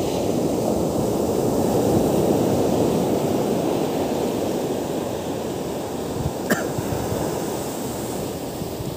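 Ocean surf breaking and washing up a sandy beach, a steady rushing wash that swells about two seconds in and slowly eases. A single sharp click sounds about six and a half seconds in.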